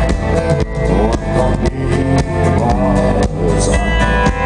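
Live country-rock band playing an instrumental passage through a loud concert PA: electric guitar lead over drums, bass and acoustic guitar.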